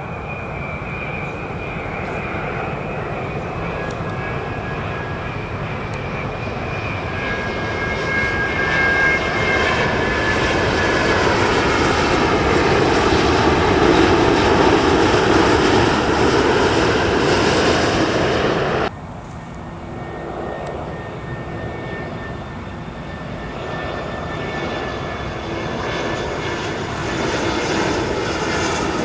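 Jet engines of a Boeing 787-10 airliner (Rolls-Royce Trent 1000) swell to a loud peak with a faint high whine, then cut off abruptly about two-thirds of the way in. The steadier jet-engine noise of an Airbus A320-216 (CFM56) follows and slowly grows louder.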